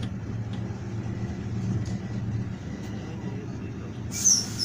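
Steady low engine and road rumble inside a moving coach bus. Near the end comes a sudden loud, high hiss.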